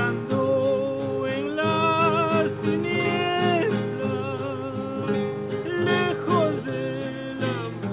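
A man singing a Christian song with steady acoustic guitar strumming beneath, his voice wavering on long held notes.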